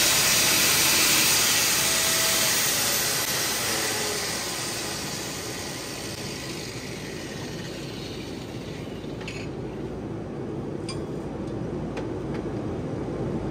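Angle grinder grinding into a deep crack in a steel trailer axle to grind it out before welding. The grinding is loud at first and dies away gradually over several seconds. A few light metallic clinks follow in the second half.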